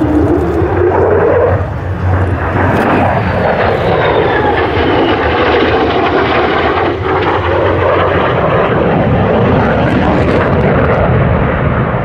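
Lockheed Martin F-35 Lightning II's single F135 turbofan engine heard as the jet flies past and banks: a loud, steady jet roar whose tone sweeps down and up as the aircraft moves across the sky.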